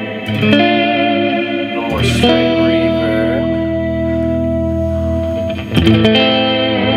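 Electric guitar played through an EarthQuaker Devices Astral Destiny reverb pedal: chords struck and left to ring out in a long reverb wash. One chord about two seconds in holds for over three seconds, and a new chord is struck near the end.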